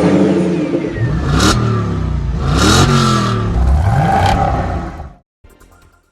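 A car engine revving three times, its pitch rising and falling with each rev, then cutting off suddenly about five seconds in.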